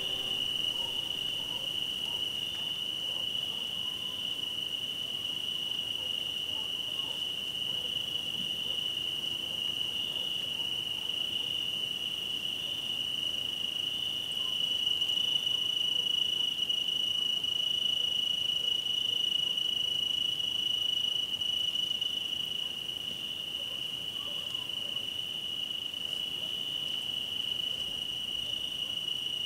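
Crickets singing in a steady, unbroken high trill, a little louder through the middle.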